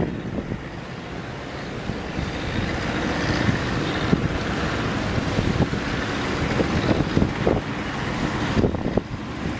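Strong wind buffeting the microphone in an uneven rumble, over the steady rush of surf.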